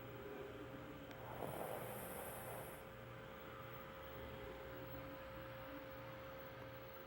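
Faint snoring in deep sleep, with one louder snoring breath about a second and a half in, over a steady hum.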